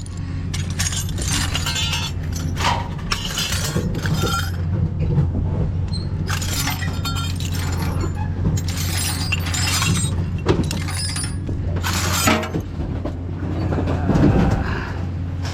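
Scrap metal pieces clanking and clattering as they are handled and dropped, in a string of irregular sharp impacts, over a steady low engine hum.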